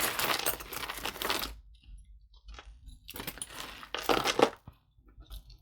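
Costume jewelry clinking and rattling as pieces are handled and pulled from a pile, in two spells of clatter: one at the start and another about three seconds in.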